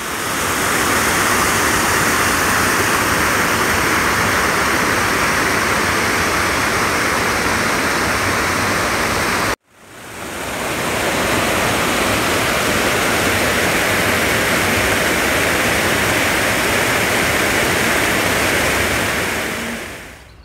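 Waterfall on the Rio Corgo, water rushing in a loud, steady roar. It cuts out suddenly about ten seconds in and fades back in, then fades away near the end.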